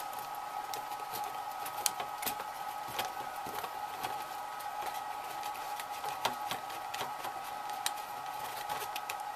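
Faint scattered ticks and scrapes of a small bolt being turned in by hand into a tapped aluminum frame, over a steady hum.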